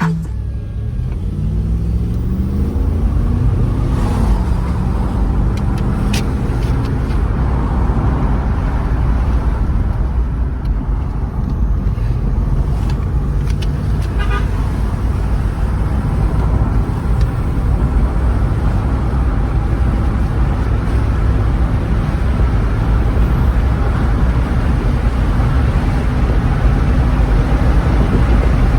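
2006 Jeep Grand Cherokee engine running on its stock exhaust. Its speed rises over the first few seconds, then it settles into a steady idle.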